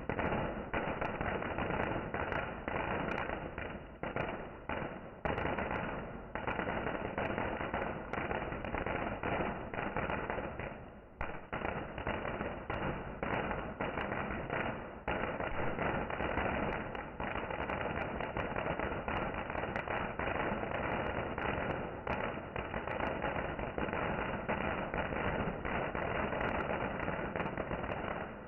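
Fireworks going off in a dense, continuous barrage of overlapping bangs and crackles, easing briefly about eleven seconds in.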